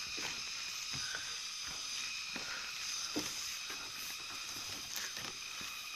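Footsteps on a bamboo-pole footbridge, soft knocks about every two-thirds of a second, over a steady high hiss.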